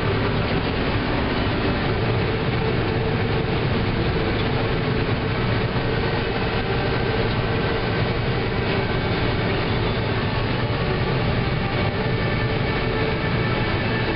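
John Deere combine harvesting corn under load, heard from inside the cab: a steady machine drone of the engine and threshing works, with a low hum and a constant mid-pitched tone, as the Drago corn head feeds in the stalks.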